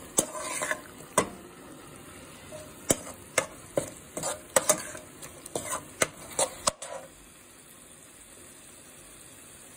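Metal slotted spoon stirring onion-tomato masala in a frying pan, clinking and scraping against the pan over the steady sizzle of the frying. The stirring stops about seven seconds in, leaving only the sizzle.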